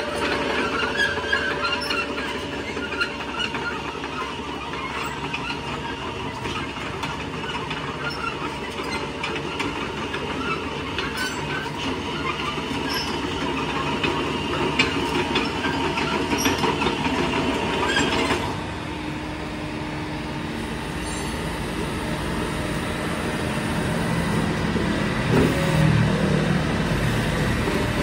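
Yanmar YB451U mini excavator travelling on steel tracks, the track links clattering and squealing against the rollers and concrete over the running diesel engine. The high squeal drops away about two-thirds of the way through, leaving a lower rumble that grows louder near the end.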